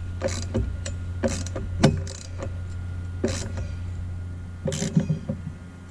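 Steel wrench clinking against the nuts and metal bracket of an antenna mast mount as the 7/16 nuts are tightened: a string of irregular sharp metallic clicks and clanks. A steady low hum runs underneath and fades out near the end.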